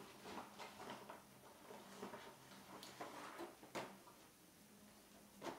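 Near silence with faint rustling and a few soft taps as a clear plastic sleeve and cloth are handled; two slightly sharper ticks come near the middle and just before the end.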